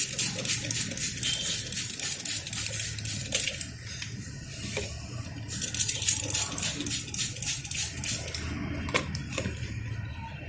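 Water squirted from a bottle onto a motorcycle chain in quick repeated spurts, rinsing off the kerosene degreaser. There are two runs of spurts with a short pause between them.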